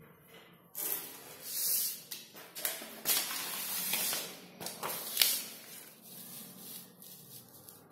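Sheets of paper being slid across a desk and handled: a series of rustles and swishes with a sharper crackle about five seconds in, then quieter handling.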